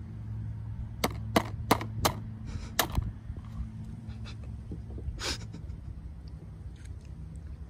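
Claw hammer striking the shell of a cooked crab on a wooden picnic table to crack it open: four quick sharp knocks about a third of a second apart, then one more blow. A short scraping noise follows a little after five seconds in.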